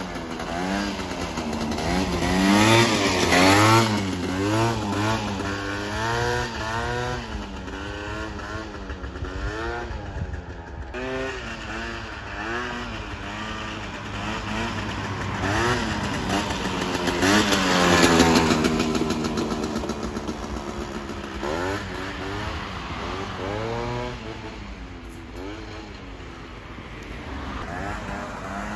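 Piaggio Zip scooter with a swapped-in 125cc Gilera Runner engine, ridden past under heavy throttle work: the engine pitch rises and falls over and over as it revs up and backs off. It is loudest about 3 s in and again about 18 s in, and grows fainter near the end as it moves away.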